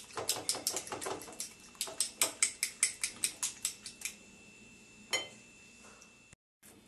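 Eggs being beaten with a utensil in a glass bowl: quick rhythmic clinks of the utensil against the glass, about five a second, stopping about four seconds in, with one more clink a second later.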